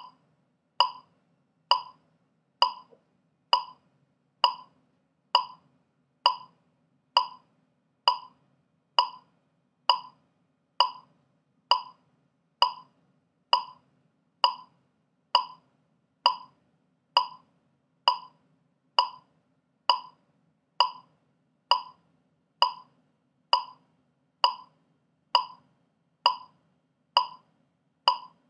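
Metronome clicking steadily at 66 beats per minute, a little under one click a second, each click short and sharp with a slight pitch.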